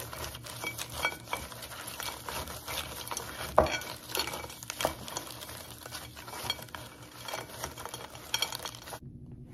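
Gloved hands mixing cracked crab pieces with chopped seasonings in a glass bowl: shells clicking and scraping against each other and the bowl, with a sharper knock about three and a half seconds in.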